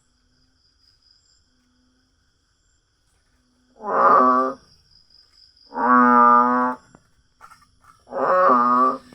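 An animal gives three drawn-out, wavering calls about two seconds apart, each lasting about a second. A faint steady high tone, such as an insect, runs underneath.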